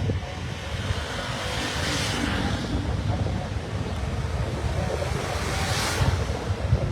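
Wind rumbling on the microphone beside a highway, with two vehicles passing: one about two seconds in and another near the end, each a swelling rush of tyre and road noise.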